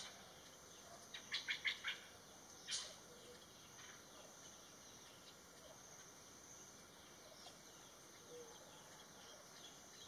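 Hair-crested drongo calling: a quick run of about five short, high notes, then a single sharp metallic note about a second later.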